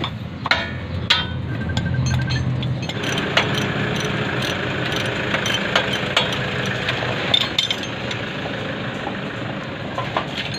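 Metal clinks and taps of hand tools on a car's front wheel hub and steering knuckle, scattered short knocks over a steady background noise that gets louder about three seconds in.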